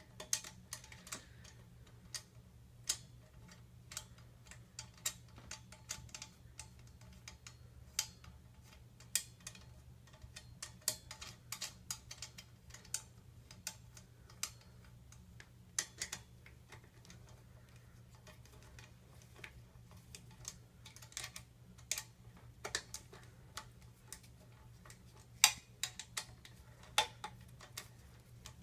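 Scattered sharp metal clicks and ticks of a hand wrench tightening the clamp bolts of a scooter's SCS handlebar clamp, coming irregularly, a few louder near the end, over a faint steady low hum.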